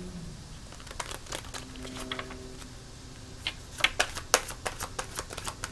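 A deck of tarot cards shuffled by hand: quick clicks and flicks of card edges, a few scattered at first, then a thick, louder run from about three and a half seconds in.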